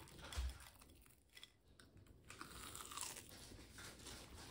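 Faint crunching and chewing as a crispy fried veg cutlet is bitten into, after a soft low thump about half a second in.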